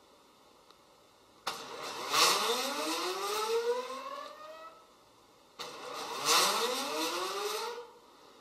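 Geared stepper motors of a wire-driven parallel robot whirring as they reel the wires, twice: each run starts abruptly with a whine that rises in pitch as the motors speed up, the first lasting about three and a half seconds and the second about two and a half.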